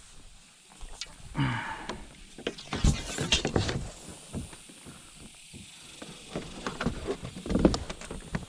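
Irregular knocks, clicks and rustles of handling on a kayak while a freshly caught flounder is dealt with, with a short hissing burst about three seconds in.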